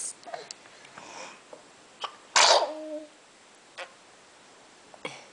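A baby of about nine and a half months sneezing once, sharply, a little over two seconds in, the burst ending in a short voiced squeak.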